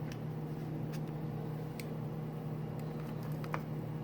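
A steady low electrical hum with a few faint clicks, about two seconds apart.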